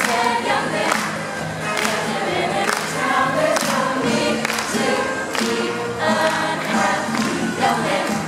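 High school chorus singing a disco medley, many voices together with a soloist on microphone, over a steady beat.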